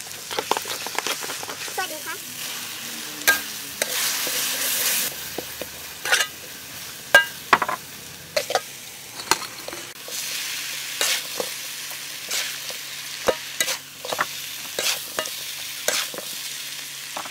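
Shredded carrot and other ingredients stir-frying in a hot metal pan, sizzling, with frequent sharp clinks and scrapes of a metal spatula against the pan. The sizzle swells twice, about three seconds in and again around ten seconds in.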